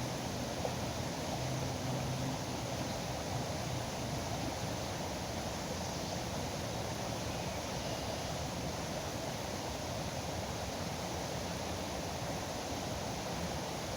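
Steady rush of turbulent, foaming river water, an even unbroken noise.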